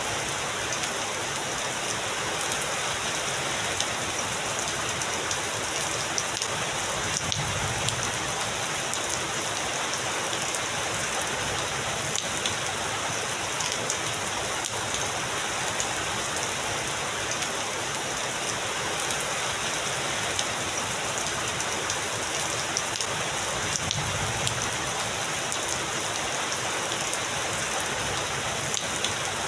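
Heavy rain falling steadily, a dense even hiss of rain on surfaces with countless fine drop ticks, and a faint low swell twice.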